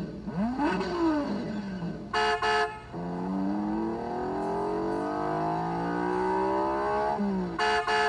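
New Bright RC Corvette C7 Stingray toy's 'try me' sound effects: a recorded engine revs up and back down once, two short horn beeps follow, then the engine pitch climbs steadily for about four seconds and drops off, and two more horn beeps come near the end. The engine sample sounds like a Nissan Skyline's RB26 inline-six rather than a Corvette V8.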